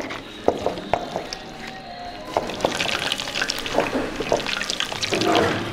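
Wooden pestle grinding a wet mash of boiled cocoyam leaves, chilies and fish in a terracotta grinding bowl: irregular wet squishing and scraping with scattered knocks, growing busier about halfway through.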